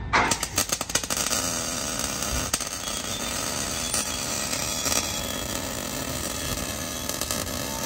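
Steady, harsh hiss of shop work on the exhaust under the car, where a slip-on muffler is being fitted, with a quick run of sharp clicks in the first second or so.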